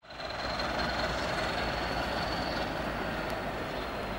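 CP 1400 Class English Electric diesel locomotive, with its EE 8SVT engine, running as it shunts slowly with a generator van: a steady engine drone with a steady high whine over it. The sound fades in over the first half second.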